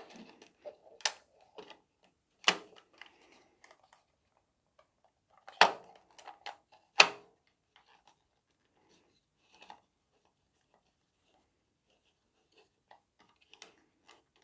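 Hard plastic parts of a gel blaster drum magazine clicking and knocking as they are handled and fitted together: several sharp clicks in the first seven seconds, then only faint small ticks.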